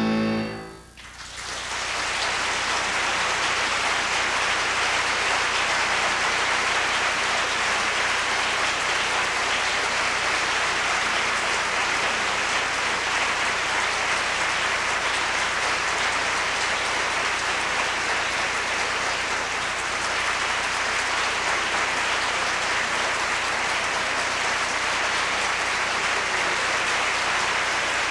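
A grand piano's final chord dies away in the first second. Then a concert audience breaks into steady, sustained applause.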